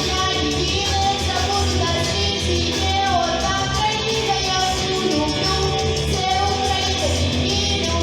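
A song with a singing voice over a full band accompaniment with a steady bass line.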